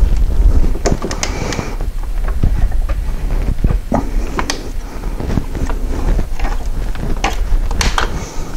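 Scattered clicks and scrapes of gloved hands working a hose clamp onto a rubber coolant hose on the engine, over a steady low rumble of handling noise close to the microphone.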